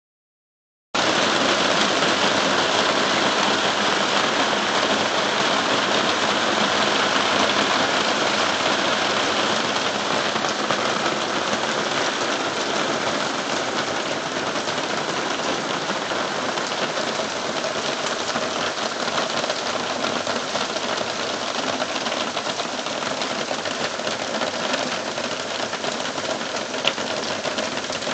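Heavy downpour, with rain pouring onto a clear corrugated plastic roof overhead at first: a dense, steady hiss that starts abruptly about a second in and eases a little after the first ten seconds. There is a single sharp click near the end.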